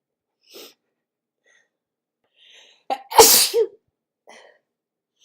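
A person sneezing once, loudly, about three seconds in, right after a quick sharp intake of breath. Faint short breaths come before and after it.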